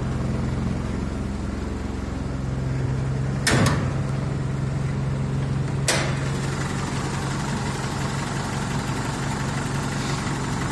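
1985 Toyota SR5 pickup's four-cylinder engine idling steadily just after a cold start, the idle a little low. Two short knocks cut through it, about three and a half seconds in and again about two seconds later.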